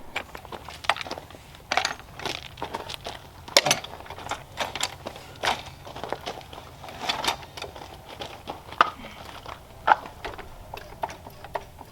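Scattered, irregular light clicks, scrapes and crunches from handling a car jack and tools on a gravel driveway.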